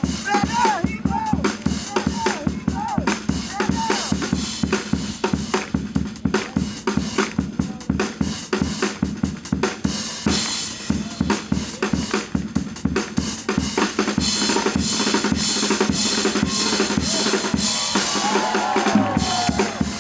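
Music driven by a drum kit playing a steady beat with bass drum and snare, with cymbals washing in about halfway through and again later.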